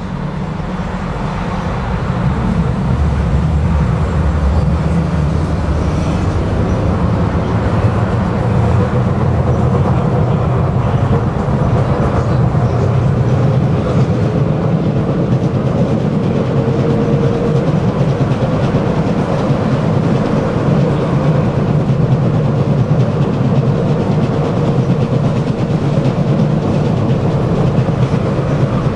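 Tram running along its track: a steady rumble of wheels and traction gear with rail clatter. It grows louder over the first couple of seconds, then holds.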